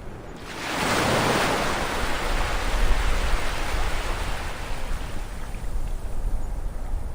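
Ocean waves on a shore: a wave breaks about half a second in, then its wash slowly fades, over a steady low rumble of surf.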